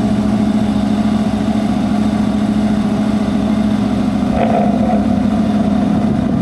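An engine idling steadily with a constant low hum. A brief higher-pitched sound rises over it about four and a half seconds in.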